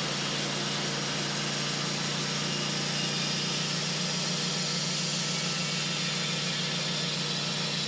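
An engine running steadily at one constant speed, with no change in pitch or level.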